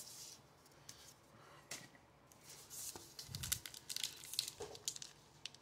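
Faint rustling, sliding and light ticks of baseball trading cards and their foil packs being handled, the sounds coming in short scattered bursts that gather in the second half.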